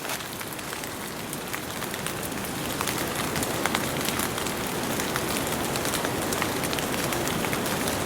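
Steady rain falling on leaves and brush, with many small drop ticks scattered through a continuous hiss.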